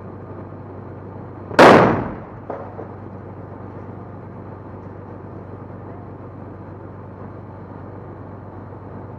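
A single loud explosion about a second and a half in, a rocket striking a BMP infantry fighting vehicle, followed by a smaller crack, over a steady engine rumble.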